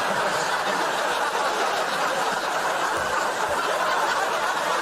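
Studio audience laughing and clapping, a steady wash of sound after a punchline.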